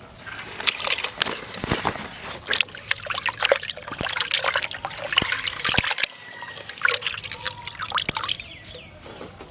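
Water trickling and splashing, with many small irregular splashes and clicks, then thinning out near the end.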